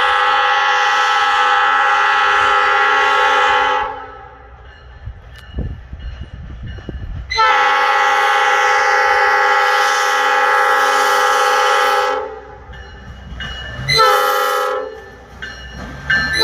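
Budd Rail Diesel Car's multi-note air horn sounding two long blasts, a short one, and the start of another long one: the long-long-short-long grade-crossing signal of a train approaching. A low rumble is heard between the first two blasts.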